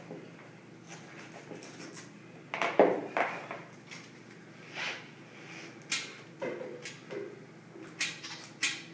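Irregular knocks and scrapes of hands, tools and wood at work on a hardwood floor during a board replacement, the loudest cluster about three seconds in.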